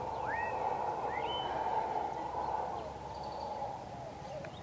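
Mantled howler monkeys roaring in a distant chorus, a continuous rough drone that eases off a little past halfway. Two short upward-sweeping bird calls cut through it in the first second and a half.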